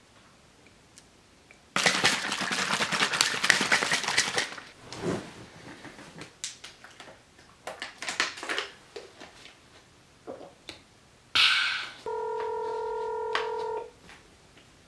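Lime juice splashing into a plastic water bottle for a few seconds, then gulps and small knocks as the bottle is drunk from. Near the end a smartphone sounds a steady electronic beep tone for about two seconds, then stops abruptly.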